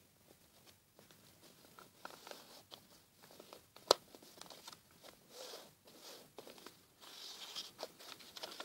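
A sheet of paper being folded and creased by hand: faint rustles and scrapes as fingers run along the folds, with one sharp click about four seconds in and denser rustling near the end.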